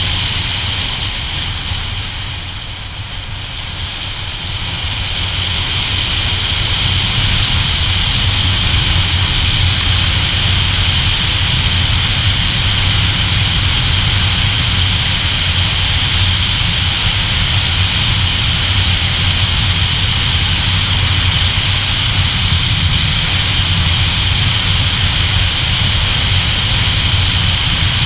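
Motorcycle riding on the road: steady wind rush over the rider-mounted camera's microphone with the engine's low drone underneath. It eases off about two seconds in and builds back up within a few seconds, as the bike slows and then speeds up again.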